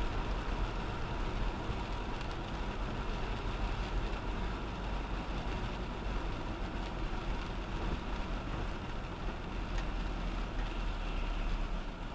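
Car being driven: steady road and tyre noise over a low engine rumble, with no sharp events.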